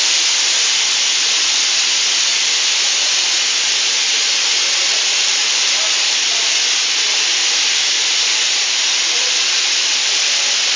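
Loud, steady hiss of pressurized gas escaping, unbroken and without change.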